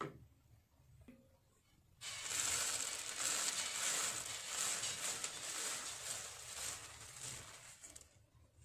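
Roasted puffed rice poured from a steel plate into a kadai of hot jaggery syrup: a steady rustling hiss that starts about two seconds in and tails off near the end.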